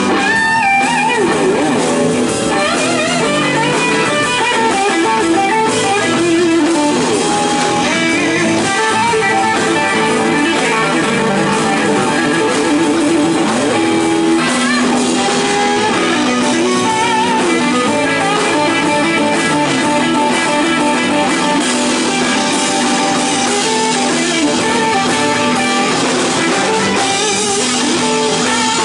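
Live blues-rock instrumental break: a lead solo on a sunburst Les Paul-style electric guitar, with many bent notes, over a band with drums.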